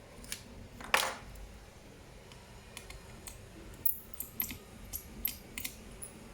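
Small hard clicks and taps from a laptop being worked on by hand. A louder click with a brief ring comes about a second in, then a quick run of lighter clicks in the second half.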